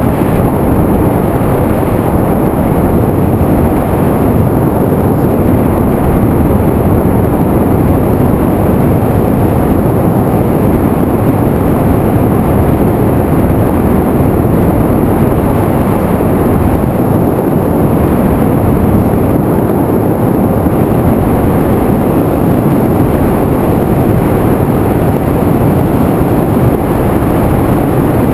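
Steady, loud rushing rumble from an FPV aircraft's onboard camera in flight: airflow over the microphone mixed with motor and propeller noise, unchanging throughout.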